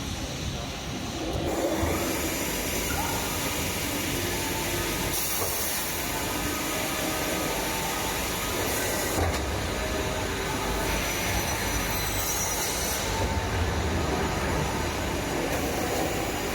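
CNC panel saw running: steady machine noise, with a high hiss that comes in about a second and a half in and changes in strength several times through the run.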